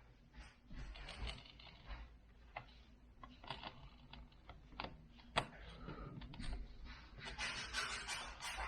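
Screen-protector parts being handled and their plastic backing film peeled: scratchy rustles and scrapes with scattered small clicks and taps. One sharper click comes about halfway through, and the scraping thickens near the end.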